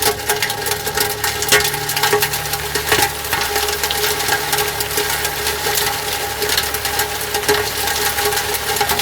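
Tornado wind blasting over the microphone with a dense crackle of many small hits, likely flying debris, over a steady hum.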